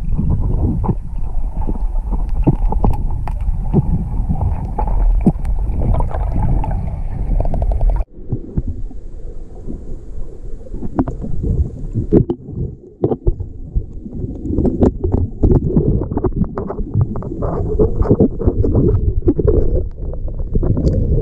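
Muffled underwater rumble of water moving against a camera as a freediver swims through a spring cave, dotted with sharp clicks and knocks. It cuts off abruptly about eight seconds in, then returns thinner and builds again.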